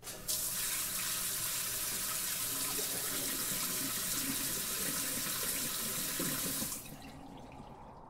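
Water running steadily in a dense spray. It starts suddenly just after the beginning and cuts off abruptly about a second before the end.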